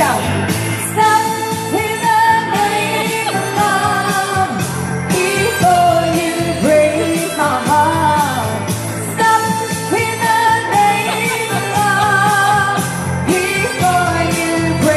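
Pop song with a woman singing a melody over a backing track, played loud through a PA speaker.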